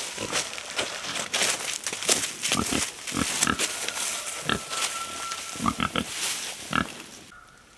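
Dry straw and leaf litter crackling and rustling as an armful of straw is carried and tossed into a pig pen, with pigs grunting several times.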